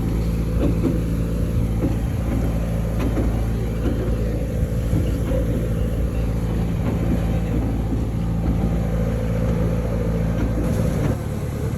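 Vehicle engine running steadily with a low hum and rumble, dropping slightly in level shortly before the end.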